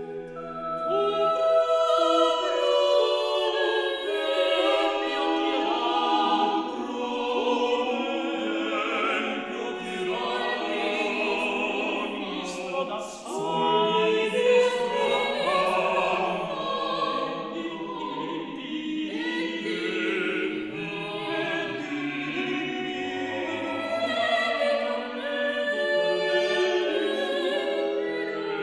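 Music with many voices singing long held notes, choir-like and classical in style. A few short clicks come near the middle.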